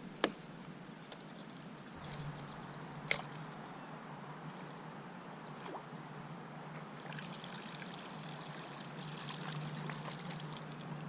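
Quiet river water trickling around a kayak, with a steady high-pitched tone throughout and two sharp clicks about three seconds apart.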